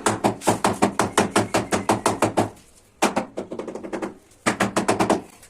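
Rapid tapping on tile, about six taps a second, in three runs broken by short pauses: a mallet bedding ceramic wall tile into its adhesive.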